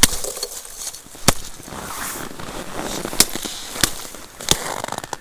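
A handful of sharp, irregular knocks over a crackling rustle, like things being handled or knocked on ice and crusted snow.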